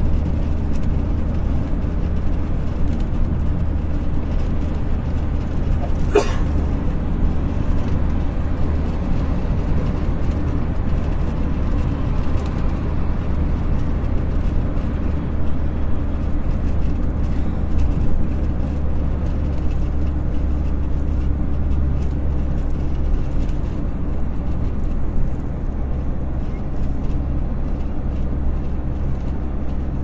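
Steady low rumble of a vehicle's engine and tyres on the road, heard from inside the cabin while driving at speed. A brief sharp click about six seconds in.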